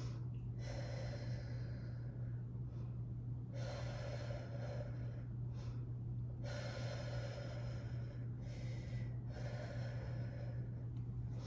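A woman breathing deeply and rhythmically while holding a plank, one long breath every two to three seconds, over a steady low hum.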